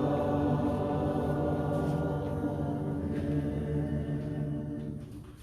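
Congregation singing a long held final chord a cappella at the close of a doxology. Several voices sustain steady notes that fade out near the end.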